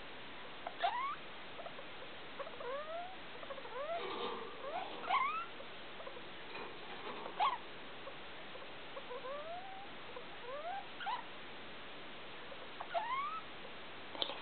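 A degu giving a long series of short squeaks that rise quickly in pitch, irregularly spaced and sometimes coming two or three in quick succession, with a few sharp clicks among them.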